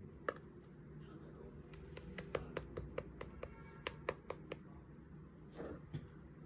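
A quick, irregular run of about a dozen sharp light clicks or taps, like tapping on a hard surface, followed near the end by a short rustle.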